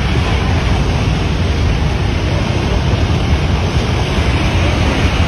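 Mountain stream in flood: a loud, steady rush of floodwater with a heavy low rumble underneath.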